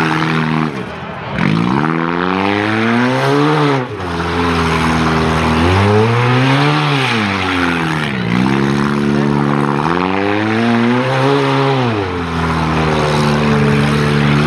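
Toyota Corolla's four-cylinder engine revving up and down hard about four times as the car spins circles on dirt, each rev climbing over a second or two and dropping off sharply. A steady hiss of tyres spinning and flinging dirt runs under the engine.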